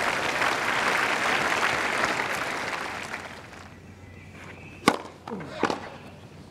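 Tennis crowd applauding after a point, fading away about three seconds in. About five seconds in comes a single sharp crack of a racket striking the ball on a serve, then a softer knock.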